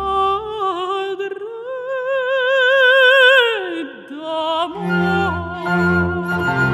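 A mezzo-soprano sings an operatic line with wide vibrato, climbing to a long held high note and sliding down about three and a half seconds in. About five seconds in, a string ensemble comes in with low bowed bass notes, under a steady high note that sounds like a flute.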